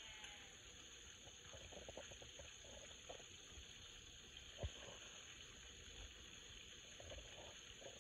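Battered chicken deep-frying in hot oil: a faint, steady sizzle with scattered small pops. There is a single sharp click about halfway through.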